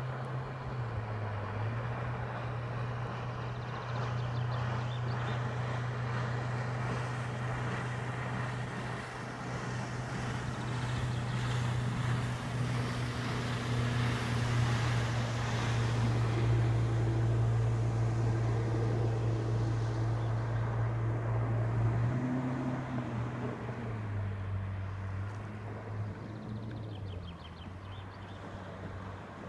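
Motorboat engine running steadily, its note stepping up and down a few times as the throttle changes, with a rush of water and wind noise that is loudest in the middle.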